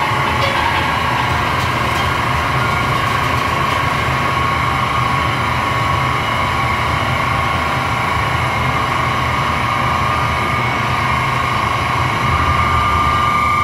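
Live harsh noise music played loud through a PA: a dense, unbroken wall of distorted rumble and hiss with no beat. A steady high whine runs through it and grows louder near the end.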